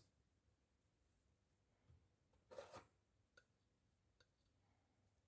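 Near silence with a few faint metallic clicks and a brief rattle about two and a half seconds in: steel pliers and a small steel ring being handled.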